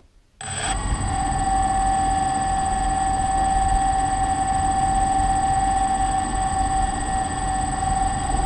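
Quadcopter drone's motors starting up as the props are armed, then idling with the propellers spinning: a steady, high whine over a rushing hum that holds level.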